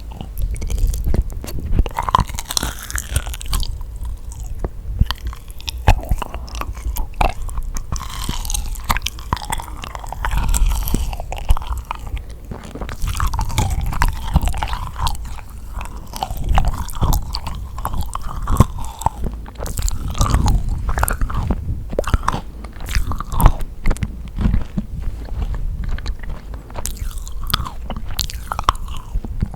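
Close-miked biting and chewing of yakgwa, the Korean deep-fried honey cookie: a steady run of sticky, wet mouth sounds with many small clicks.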